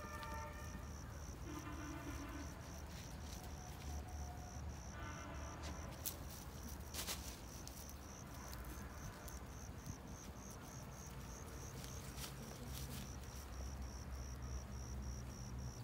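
Crickets chirping: a faint, high, pulsed trill repeating about three to four times a second, over a low rumble, with a couple of sharp clicks around the middle.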